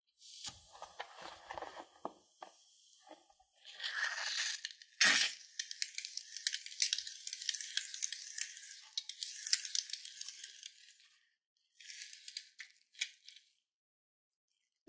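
Scissors snip the neck of a rubber balloon, then the balloon is squeezed and white foam sputters out through the cut with a crackling hiss, broken by a short sharp burst about five seconds in and a few last crackles near the end.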